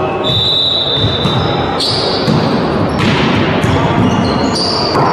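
Indoor volleyball play on a hardwood sports-hall floor: ball strikes and players' feet on the court, with high shoe squeaks over a busy hall din. Two sharp impacts land about two and three seconds in.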